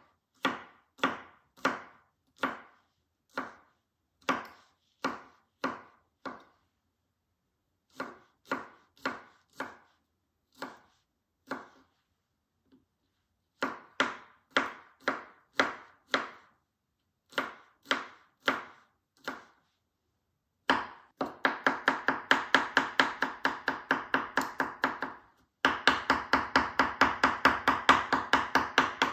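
Chef's knife slicing garlic cloves on a wooden cutting board: separate knocks about two a second in short runs with pauses. About twenty seconds in it turns to fast, continuous chopping as the garlic is minced, with one brief break near the end.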